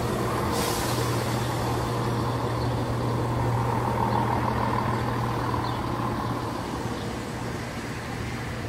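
EMR Regional diesel multiple unit running past over the crossing: a steady low engine drone with wheel-on-rail noise, loudest in the middle and easing off as the train moves away near the end.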